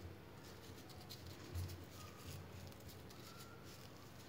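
Near silence: faint room tone with a few soft ticks and one low, soft bump about one and a half seconds in.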